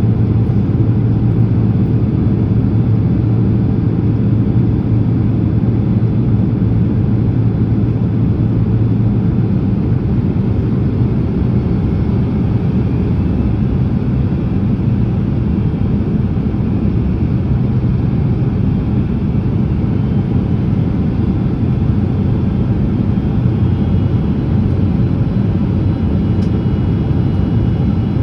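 Steady low cabin rumble of a Boeing 767-300ER on approach, engine and airflow noise heard from inside the passenger cabin, with the slats extended.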